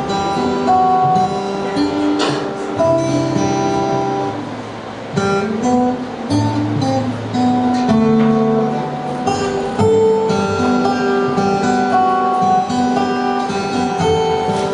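Acoustic guitar played live, chords and single notes ringing out in an instrumental passage with no singing.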